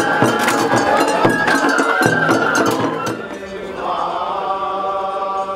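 Festival hayashi of a bamboo flute and taiko drums over crowd noise. About three seconds in it gives way to a quieter, slow chant in long held notes.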